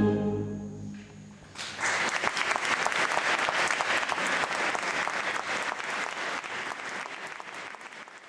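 The last chord of an orchestral piece rings out and dies away, then audience applause breaks out about a second and a half in and goes on, slowly easing.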